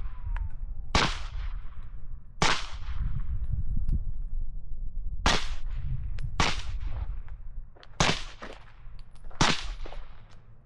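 Suppressed Sig MPX-K 9mm carbine firing single shots through a Resilient RS9 suppressor: six shots at an unhurried, uneven pace, one every one to three seconds.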